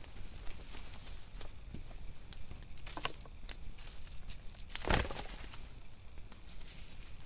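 A person moving through dry leaf litter and handling sticks: scattered rustles and small twig cracks, with one louder crunch about five seconds in.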